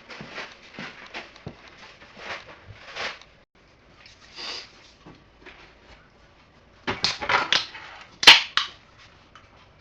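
Kitchen clatter from handling utensils and a mixing bowl: scattered light knocks and clinks, then a run of louder knocks about seven seconds in and one sharp, loud clack just after.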